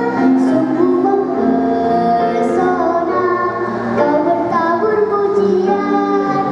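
A girl singing a song, with instrumental accompaniment.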